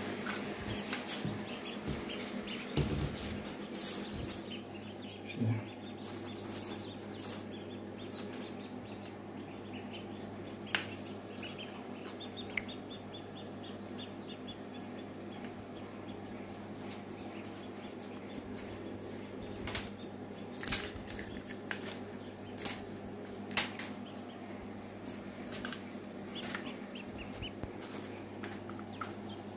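Newly hatched ducklings peeping faintly in short runs, with scattered taps and scrabbling on a perforated metal hatcher tray as they are handled, over a steady low hum.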